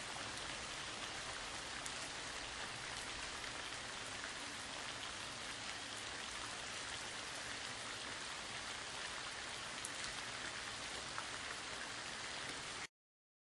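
A steady, even hiss like rain or spraying water, with no rhythm or change. It cuts off suddenly near the end.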